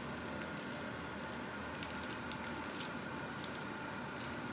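Scattered small crinkles and clicks of a plastic bag being handled and opened by hand, over a steady low hum.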